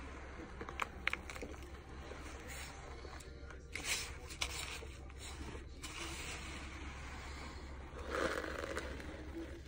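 Eating chunks of powdery starch: short crunching and crackling as the chalky chunks are chewed, with powdery scraping and rubbing from the crumbling lump in the hands. A few sharp crunches come about a second in, a cluster around the middle and another just past eight seconds.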